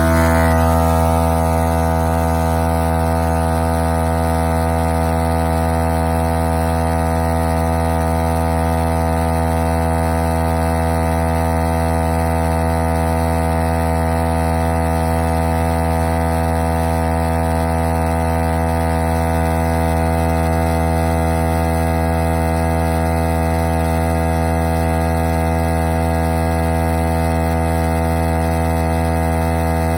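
Portable 12 V tire inflator compressor running steadily, a loud, even motor hum.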